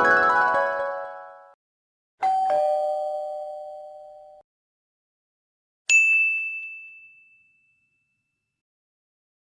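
Stock sound effects: the end of a musical chord fades out, then a two-tone doorbell chime, ding-dong, about two seconds in, then a single high bright ding about six seconds in.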